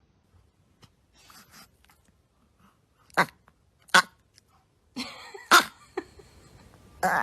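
A pet animal making four short, sharp, noisy sounds spaced out over several seconds, with fainter ones before them.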